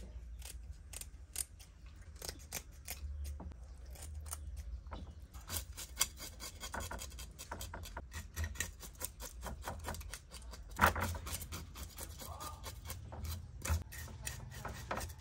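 Knife scraping scales off a whole fish on a wooden board in quick repeated strokes, with scissors snipping the fins near the start. One sharper knock about eleven seconds in.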